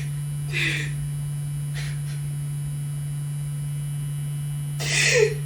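A steady low electrical hum, with a short breath about half a second in and a louder, strained whimper from a woman near the end.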